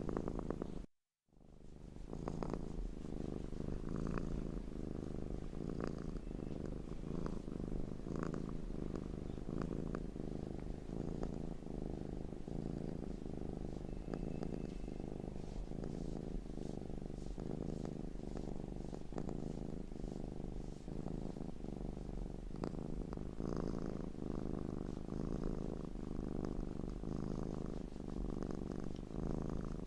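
Domestic cat purring steadily, close up, with a brief cut to silence about a second in.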